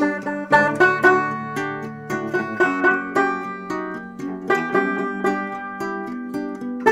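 Background music: a plucked-string tune with quick picked notes over a held low note.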